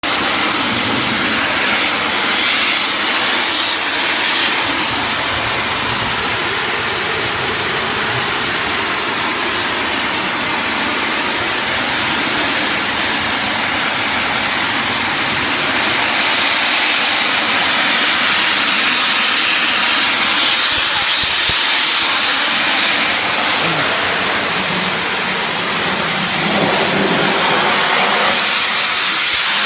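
High-pressure water jet from an electric car-wash pump's spray wand, hissing steadily as it blasts wet concrete, with the pump's electric motor running underneath.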